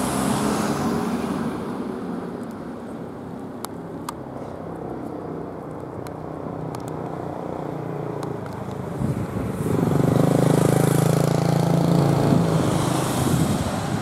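Car engines passing on the road: one car goes by close at the start, and another vehicle's engine hum grows louder from about nine and a half to twelve and a half seconds in.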